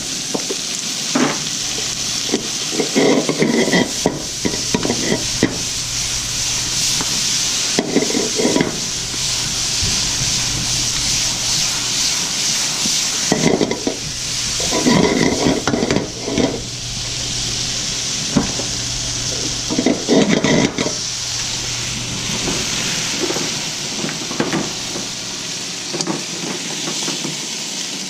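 Chicken-and-vegetable stir fry sizzling in a hot oiled pan as it is stirred and tossed, finishing with hoisin sauce. Bursts of utensil scraping and clatter against the pan come every few seconds over the steady sizzle, which eases near the end.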